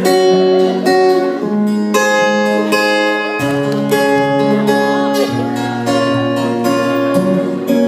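Guitar playing a slow picked melody over lower bass notes, each note ringing on.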